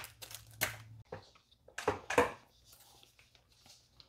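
Plastic bags and packaging rustling and crinkling as they are handled, in a few short bursts, the loudest about two seconds in.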